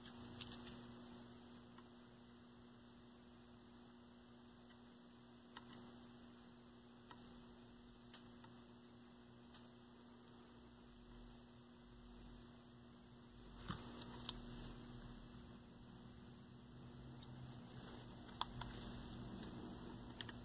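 Near silence with a faint steady electrical mains hum and a few light clicks, two about two-thirds of the way in and two more near the end.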